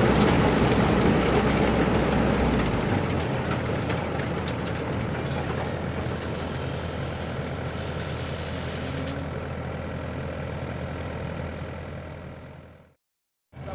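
Engine of a rice threshing machine running steadily with a low drone. It gradually gets quieter and drops out briefly near the end.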